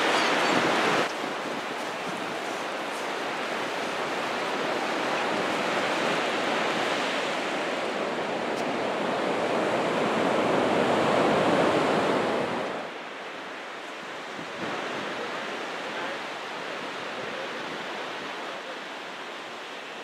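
Ocean surf breaking and washing up a sandy beach, a steady rush that swells to its loudest a little past the middle and then drops off sharply.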